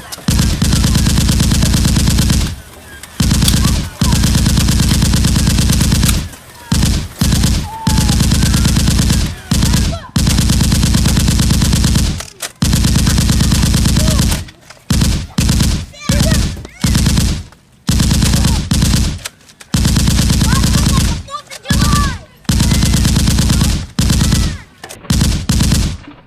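Rapid machine-gun fire sound effects, in long bursts of several seconds broken by many short pauses.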